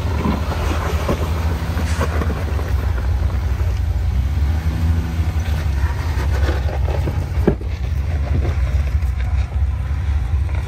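Jeep Gladiator Mojave's engine running at low crawling speed as the truck climbs over rock, a steady low rumble with the engine note rising and falling around the middle. A couple of short knocks, about two seconds in and again past seven seconds.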